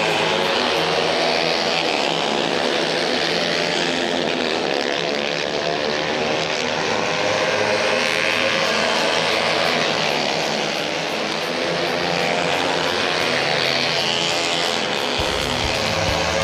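Several racing motorcycle engines running at high revs through a corner, their overlapping pitches rising and falling as the bikes accelerate and pass.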